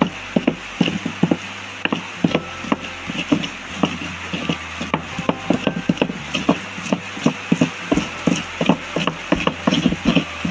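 Stone pestle (ulekan) pounding and grinding a chili and shrimp-paste (terasi) paste in a stone mortar (cobek): a steady rhythm of stone-on-stone knocks and scrapes, about three a second.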